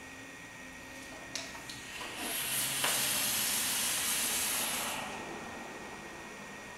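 Sub-ohm vape with a dual-coil 0.13 ohm build on a Quasar rebuildable dripping atomizer being fired. A click comes about a second and a half in, then the coils sizzle and air is drawn through the atomizer in a loud, steady hiss for about three seconds before it fades.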